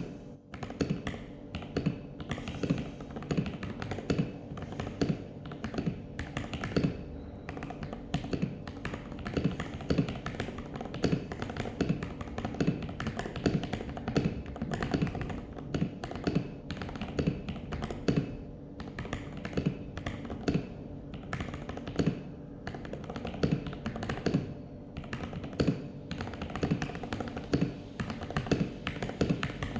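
Continuous typing on a CIY Tester68 mechanical keyboard fitted with lubed MMD Panda tactile switches and XDA-profile keycaps: a steady stream of deep, clacky keystrokes, several a second, with an occasional louder stroke.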